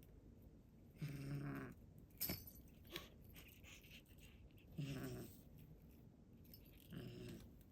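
Domestic cat giving three low, drawn-out calls that sit between talking and growling, the sound of an annoyed, chattering cat. A couple of small clicks fall between the first and second calls.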